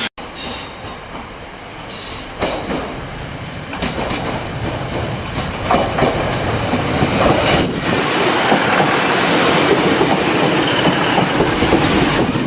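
A train running on rails, growing louder over the first several seconds, with a few sharp knocks from the wheels.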